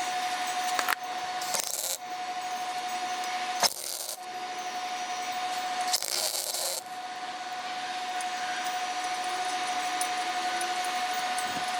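MIG welder arc crackling steadily as galvanized steel nuts are welded on, with a steady tone under it. It runs almost without a break, with a few short breaks in the arc.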